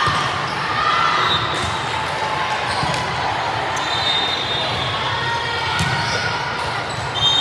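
Indoor volleyball being played on a gym court: a few sharp ball hits and short sneaker squeaks on the floor, over steady crowd chatter.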